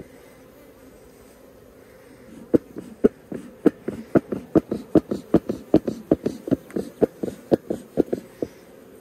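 Honeybees humming steadily over an open hive. About two and a half seconds in, a quick run of about twenty short knocks starts, three or four a second, and stops shortly before the end.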